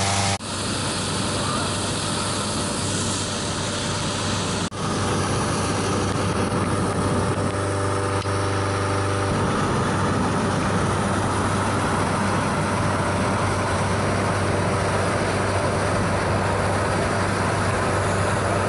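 Engine-driven inflator fan running steadily with a low hum and a loud rush of air as it blows into a hot air balloon envelope during inflation. The sound drops out briefly twice, near the start and about five seconds in.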